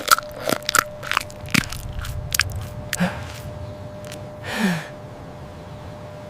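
Close-miked chewing and lip-smacking of a mouthful of food, with a quick run of sharp wet clicks in the first couple of seconds, then quieter chewing.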